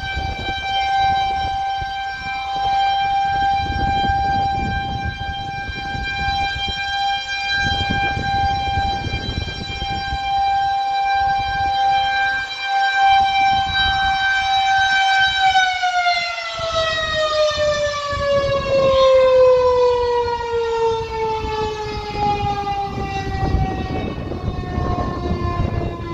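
Federal Signal 2001-130 rotating single-tone warning siren sounding a tornado warning. It holds one steady wailing pitch, swelling and fading in loudness as the horn rotates. About fifteen seconds in, it begins winding down, the pitch falling steadily as the rotor slows.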